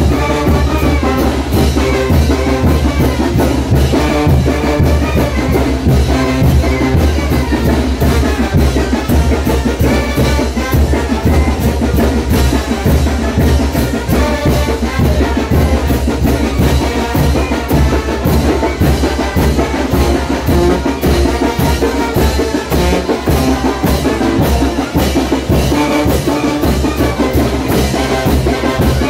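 Brass band with drums playing brinco music for the chinelo dance: trumpets over a steady, driving beat.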